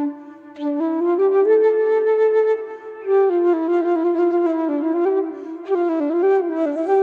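Solo flute playing a melody in phrases, with short breaks between phrases about half a second in and near three seconds in.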